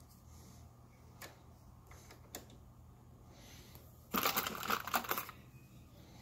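Handling noise at a reloading bench: a couple of light clicks, then about four seconds in a loud burst of close clattering and rustling lasting a little over a second as a hand moves right by the phone.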